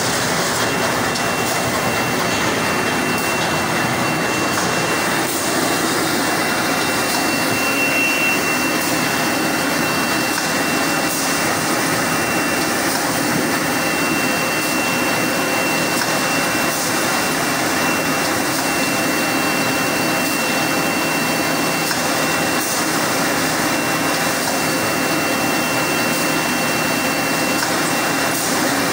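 Automatic 5-ply board pasting machine running: a steady whooshing whir from its suction-feed blower and belts, with a thin high whine held throughout.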